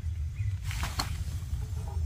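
A short scrape ending in one sharp metallic click about a second in, as a backpacking canister stove on its gas canister is handled, over a steady low rumble with a few faint bird chirps.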